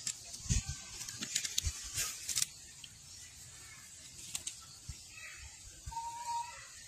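Macaques moving and rummaging in dry leaf litter: scattered rustles and small clicks, mostly in the first two and a half seconds, and a faint short squeak about six seconds in.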